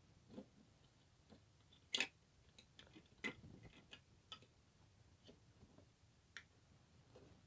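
Faint, scattered clicks and taps of plastic LEGO pieces being handled, the sharpest two about two and three seconds in.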